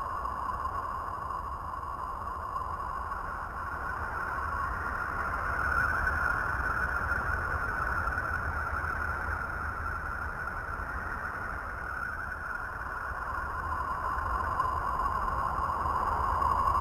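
The 'sound of Uranus', a space recording turned into audio: a steady whistling drone that slowly rises and falls in pitch, a little higher about six seconds in and lower again near the end, over a low rumble.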